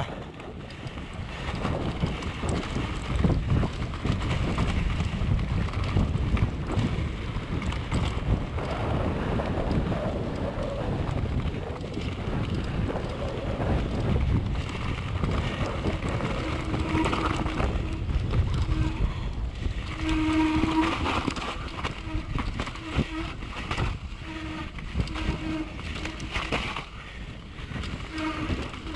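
Downhill mountain bike ridden fast down a dirt forest trail, heard from a camera on the rider: wind rushing on the microphone, tyres on dirt, and the chain and suspension rattling and knocking over bumps. From about halfway a short buzzing tone comes and goes repeatedly.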